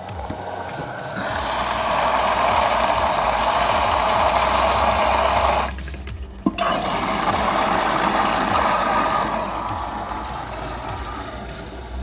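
LG WD-12380FBN front-loading washing machine filling with water: a loud rushing hiss of water running in through the detergent drawer, starting about a second in. It breaks off for about a second midway, then comes back and tapers off near the end, over a steady low hum.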